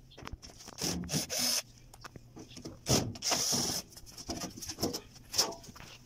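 Sheet-metal lower access panel of a Maytag washer being worked loose and pulled off. Several scraping and rubbing bursts with scattered knocks, the longest scrape about three seconds in.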